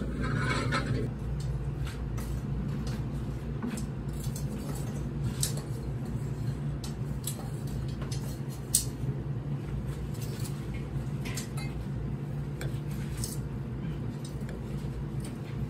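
Clinks and light knocks of ceramic dishes and utensils, scattered and irregular, with one sharper clink about nine seconds in, over a steady low hum of the restaurant.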